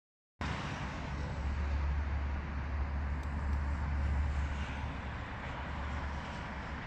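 Steady low outdoor rumble with a hiss over it, starting abruptly just after the opening; no crow calls stand out.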